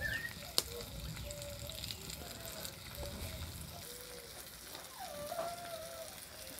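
Faint, steady sizzle of diced potatoes, chorizo and tomato frying in a pot over a wood fire. A few faint wavering calls are heard over it, and there is one sharp click about half a second in.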